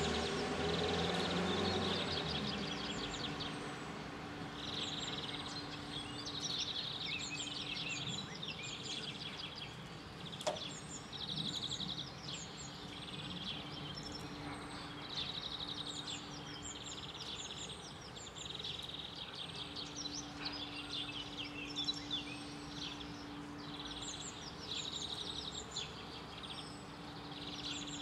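Songbirds chirping and trilling again and again, with short high tweets, over a steady low hum. A low rumble dies away in the first two seconds, and a single sharp click comes about ten seconds in.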